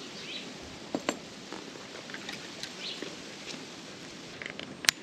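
Faint outdoor background with scattered short, high bird chirps, and a few light clicks from handling the drone and its sinker rig, the sharpest click near the end.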